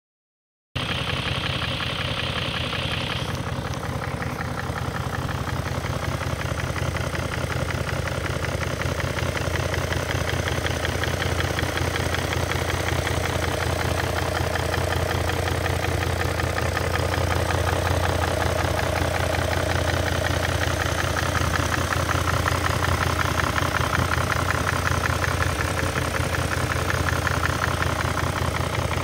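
BMW M62B44TU 4.4-litre V8 idling steadily with the bonnet open. The engine is due for a timing chain replacement and a VANOS rebuild.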